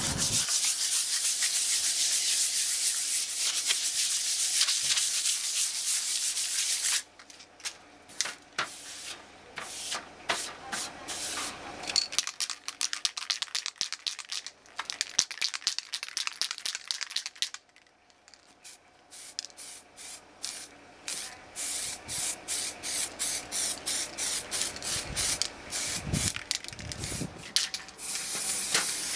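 Aerosol spray paint hissing and abrasive rubbing on a bare steel stove register plate as it is prepared and painted black. A long steady hiss at the start, then many short quick strokes, about two or three a second later on, and a steady hiss again near the end.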